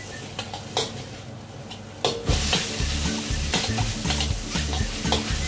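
Minced beef sizzling in a wok while a metal spatula stirs and scrapes it, with sharp clicks of the spatula against the wok. The sizzling grows louder about two seconds in.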